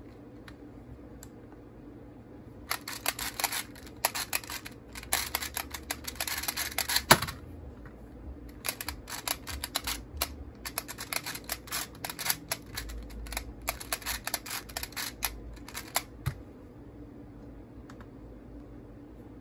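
Rubik's Clock puzzle being worked by hand: rapid plastic clicking of its dials and pins in bursts with short pauses, starting about three seconds in and stopping about sixteen seconds in.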